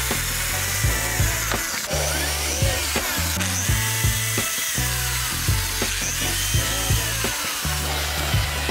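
Background music with a steady beat and bass, over the whir and scrape of an electric drill fitted with an abrasive grinding bit, grinding a small metal plate.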